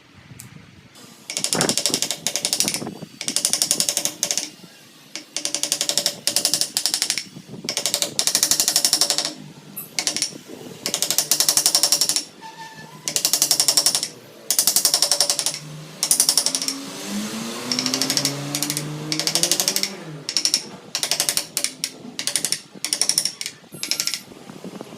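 Power carving tool cutting into wood in repeated bursts of about a second each, every burst a rapid chatter of strokes, with short pauses between cuts. A faint low rising tone runs under the cuts about two-thirds of the way through.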